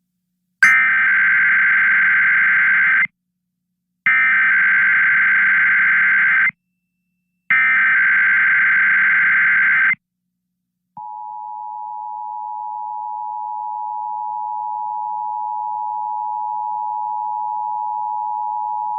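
Emergency Alert System test tones on a radio broadcast: three identical SAME digital header bursts, each about two and a half seconds long with a second of silence between them. About eleven seconds in comes the steady two-tone EAS attention signal, which swells in loudness over its first few seconds.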